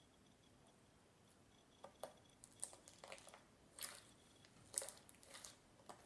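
Clear glitter slime being poked and squeezed by hand: a run of short, irregular wet squelches and clicks, starting about two seconds in.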